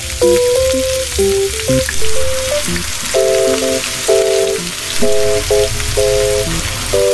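Battered tempe deep-frying in a small pan of hot oil: a steady, dense sizzle.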